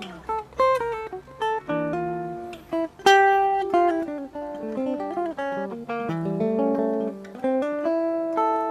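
Guitar playing a jazz passage of close-voiced cluster chords mixed with single notes, each plucked and left to ring; the loudest chord comes about three seconds in.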